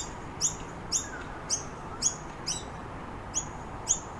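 A noisy miner giving short, high, sharply falling chirps over and over, about two a second. Given the context, these are insistent begging calls for honey and sugar.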